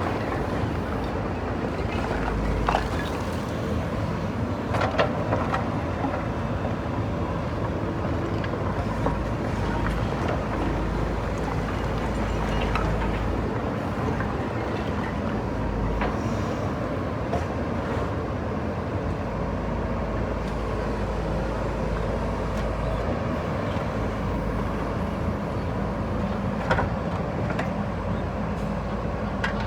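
JCB backhoe loader's diesel engine running steadily under work, with a few sharp knocks and clatters as it breaks up brickwork, the loudest about five seconds in.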